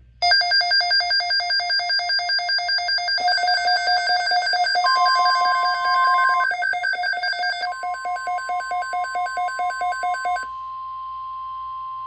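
A weather radio receiver's electronic alert alarm beeping in a fast pulsing trill, with a second pulsing layer joining about three seconds in. Under it the steady 1050 Hz NOAA Weather Radio warning tone sounds briefly around five seconds in, then returns at about eight seconds and holds on alone after the pulsing stops about ten seconds in, announcing an incoming alert.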